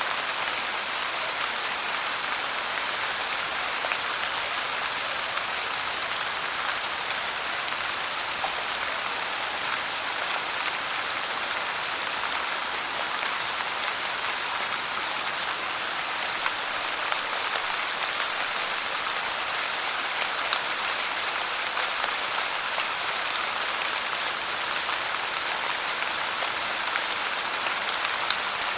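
Steady rain pouring, an even hiss with fine scattered drop ticks.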